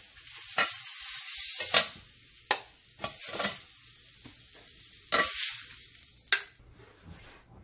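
Grilled pineapple spears sizzling in a hot cast-iron grill pan as metal tongs lift them out, with about half a dozen sharp clicks and scrapes of the tongs against the pan and a metal sheet tray. The sizzle dies down near the end as the pan empties.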